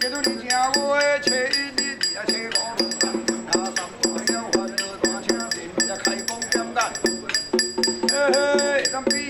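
Traditional Taiwanese temple ritual music: a fast, steady percussion beat with a high ringing tone held above it, and a wavering, gliding melody line that rises near the start and again near the end.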